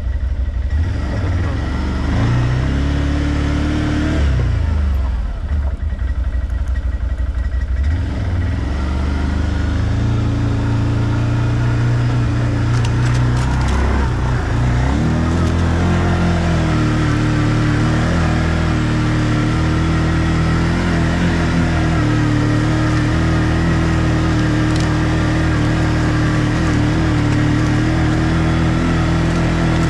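ODES 650 ATV engine under way, its pitch rising and falling with the throttle. It eases off briefly about four to eight seconds in and again around fourteen seconds, then holds a steady pull.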